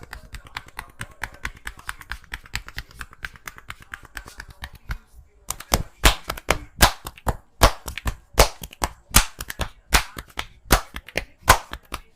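Hands of a barber doing percussive head massage: quick, light finger tapping at first, then from about halfway loud rhythmic hand slaps on the head and neck, about two to three a second.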